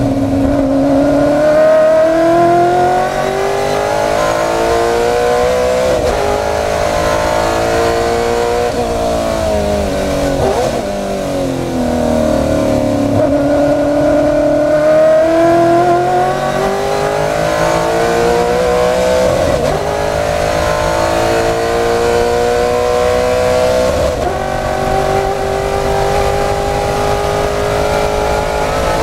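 On-board sound of a Ford Mustang race car's V8 engine under full throttle. The pitch climbs through each gear and drops sharply at the shifts, about every four seconds, with quick downshifts around ten seconds in.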